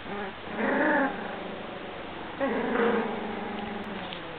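Very young puppies, 17 days old, growling and whining at each other in small high-pitched grumbles: a short one about half a second in, then a longer drawn-out one from about two and a half seconds in that sinks slightly in pitch.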